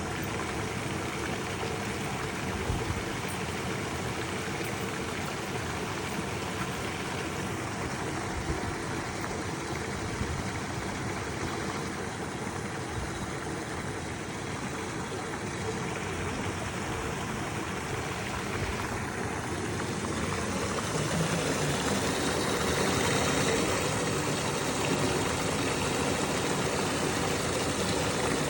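Spring water running steadily into an old washhouse basin, growing louder about two-thirds of the way through.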